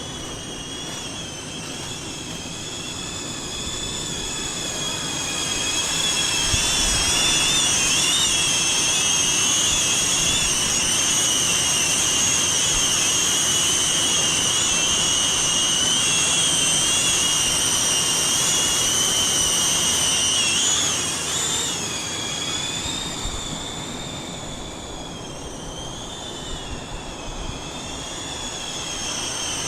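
Small caged FPV drone's propellers and motors whining at high pitch, the whine wavering as the motors adjust. It grows louder a few seconds in, then drops and dips in pitch about two-thirds of the way through before climbing again near the end. Low rumble of wind on the microphone underneath.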